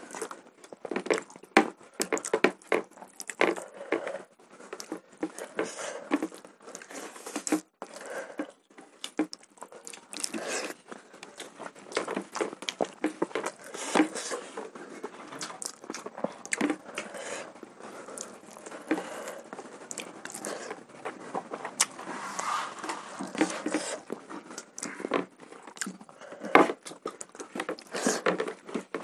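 Close-miked eating of rice and chicken curry by hand: wet chewing and lip-smacking with many short sticky clicks, and fingers squishing rice on the plates.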